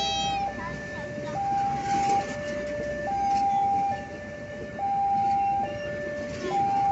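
Railway level-crossing warning alarm sounding its two alternating tones, high then low, each held a little under a second, over the rumble of passenger train coaches rolling past.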